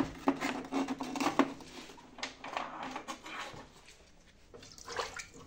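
Cut agate slices being handled: a run of small hard clicks and knocks with some rustling, thickest in the first second and a half, with a few more later.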